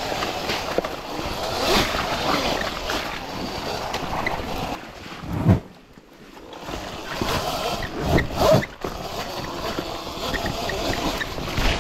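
Wind rushing over the microphone and tyre noise as a Sur-Ron electric dirt bike is ridden, with a few low thumps, the loudest about five and a half seconds in and two close together about eight seconds in; the rush drops away briefly about six seconds in.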